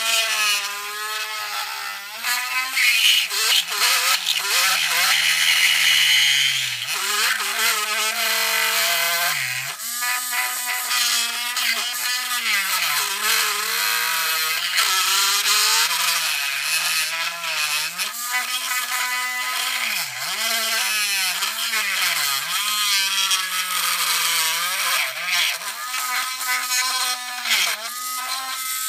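Handheld electric rotary tool cutting through a hard plastic car body shell. Its motor whine keeps dipping in pitch and recovering as the bit bites into the plastic and is eased off, over a gritty cutting hiss.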